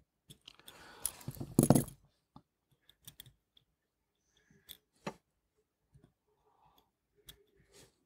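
Small metal clicks and scrapes of watchmaker's hand tools working a wristwatch case and movement. A louder handling scrape comes about a second in, then a scatter of single sharp clicks.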